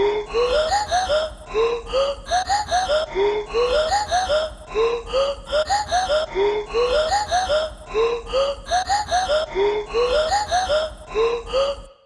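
Background music: a short phrase of rising pitched notes looping about once a second over a steady deep bass, cutting off at the end.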